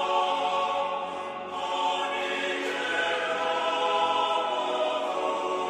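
Choral background music: a choir holding sustained chords, dipping briefly about a second and a half in before new held notes come in.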